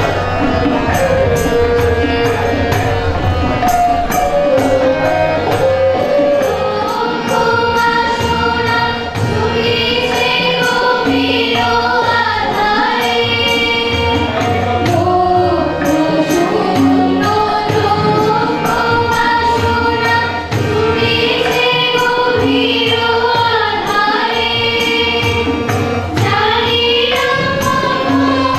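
A group of women singing a devotional song together to harmonium accompaniment, over a steady percussion beat.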